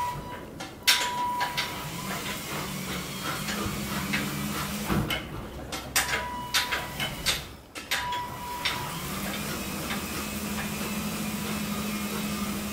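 Caravan mover's electric motors driving the caravan's wheels to turn it, running in two spells with a steady low hum, once about two seconds in and again from about nine seconds on. Short high beeps and sharp clicks come between and before the runs.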